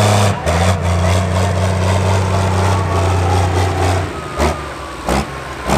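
John Deere Pro Stock pulling tractor's turbocharged diesel engine, held at steady high revs under full load as it pulls the sled. About four seconds in the throttle comes off and the engine drops away, leaving a high turbo whistle winding down.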